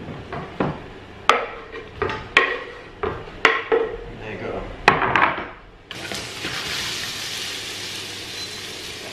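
Knife scraping chopped pork chipolata pieces off a wooden chopping board into a frying pan, a quick run of knocks and clatters as the pieces tumble in. About six seconds in, a steady sizzle starts as the sausage pieces fry in hot oil.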